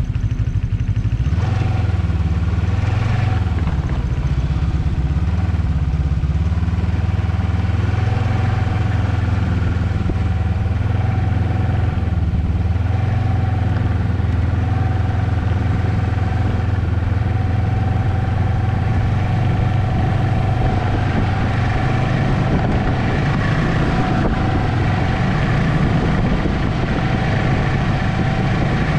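Ski-Doo Expedition snowmobile running under way on a snowy trail, heard from on board the machine. About a second and a half in the engine picks up, its pitch rising and falling for a few seconds as the throttle changes, then it holds a steady cruising note.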